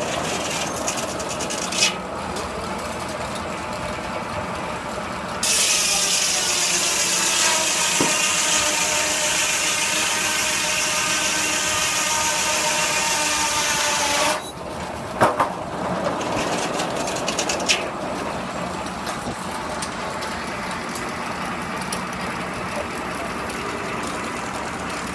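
Circular sawmill blade running, then ripping through a log for about nine seconds from five seconds in: a loud hissing cut with a whine that sags in pitch as the blade takes the load, stopping abruptly when the cut ends. Sharp clunks of the log carriage and a steady machine hum before and after the cut.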